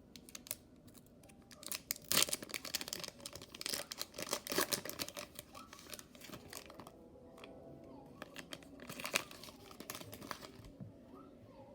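Foil wrapper of a Pokémon booster pack crinkling and tearing as it is opened, in irregular crackling rustles that are busiest in the first half.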